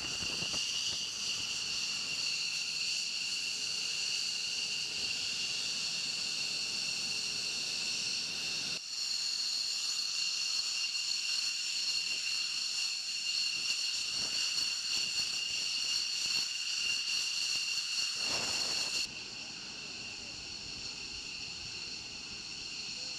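F-15C Eagle's twin Pratt & Whitney F100 turbofan engines at idle: a steady, high-pitched whine of several tones over a rushing hiss. It steps louder about nine seconds in, and its highest part drops away and it turns quieter about nineteen seconds in.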